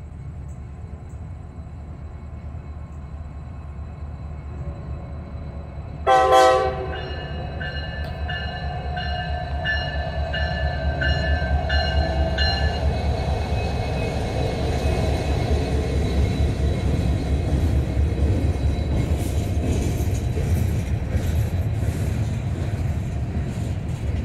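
Norfolk Southern diesel freight locomotive approaching and passing close by, its engine rumble growing louder as it nears. A loud horn blast sounds about six seconds in, followed by a repeating ringing tone for about six seconds. Near the end the freight cars roll past with rapid wheel clicks and clanks.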